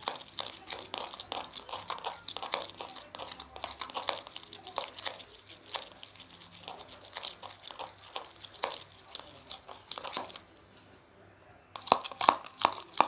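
Slime mixture being shaken hard in a plastic container: a rapid, uneven run of clicking, crinkly knocks that pauses for about a second and a half near the end and then starts again.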